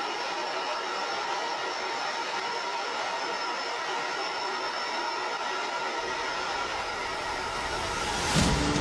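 Steady in-flight noise of a fighter jet heard from the cockpit: an even rush of air with a faint high whine. Near the end a loud whoosh and music come in.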